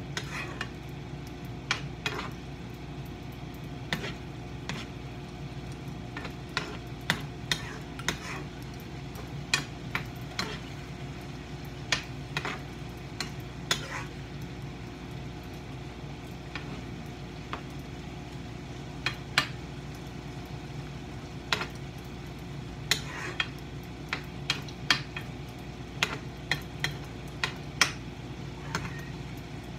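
A cooking utensil scraping and clacking irregularly against a frying pan as chicken strips and cabbage are stir-fried, with a light sizzle and a steady low hum underneath.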